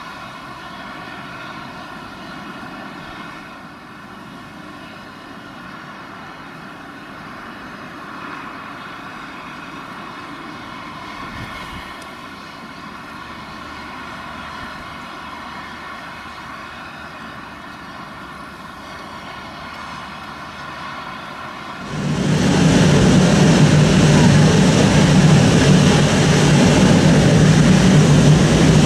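Airbus A380's four Rolls-Royce Trent 900 turbofans at taxi power: a steady whine made of many tones. About 22 seconds in, the sound suddenly becomes much louder and rougher, with a strong low rumble.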